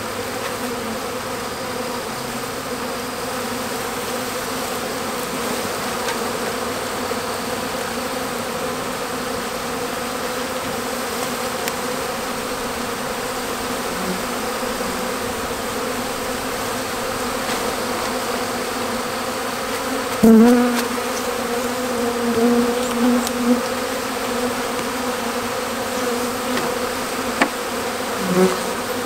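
A honeybee swarm buzzing: the steady, dense hum of many bees as the clustered swarm is raked off a tree into a hive box. The buzz swells louder in short bursts from about twenty seconds in, and again near the end.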